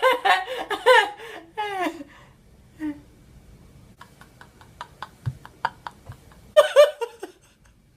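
High-pitched laughter in quick bursts, trailing off with a falling note. A run of light ticks follows, then another short burst of laughter near the end.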